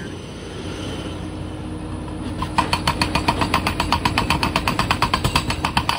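An air-powered hammering tool runs for about three seconds starting a couple of seconds in, a fast even rattle of about eight blows a second. Under it an engine runs steadily.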